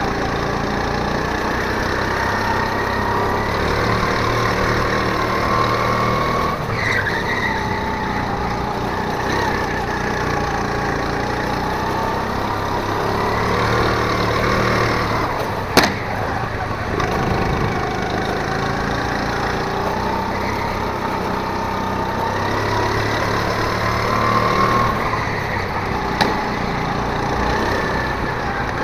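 Go-kart engine running hard, its pitch rising and falling again and again as it speeds up and slows. There is a sharp click about halfway through and a smaller one near the end.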